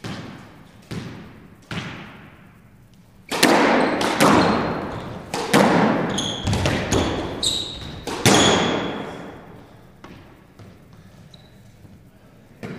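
Squash ball and racket in a walled court: a few single thumps, then from about three seconds in a rally of hard racket strikes and the ball smacking off the walls, each hit echoing. Short high squeaks from court shoes on the wooden floor come in the middle of the rally, which ends a few seconds before the end.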